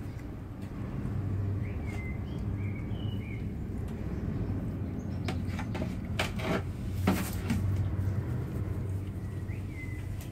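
Cat pushing and rubbing against the phone at close range, giving several knocks and scrapes on the microphone between about five and seven and a half seconds in, the loudest near seven seconds. Under it runs a steady low rumble, and a few faint bird chirps come about two to three seconds in.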